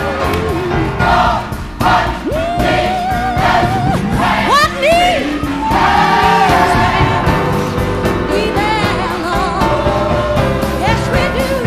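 A slow song: a lead singer holds long notes with vibrato and slides up and down between pitches, over sustained backing voices and instruments.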